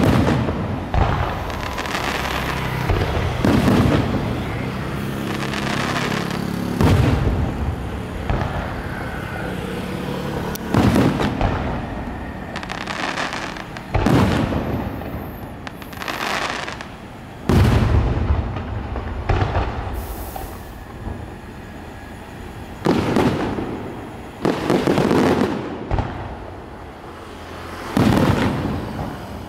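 Aerial firework shells bursting one after another: about a dozen sharp booms at uneven intervals, some in quick pairs, each trailing off into a rumbling echo.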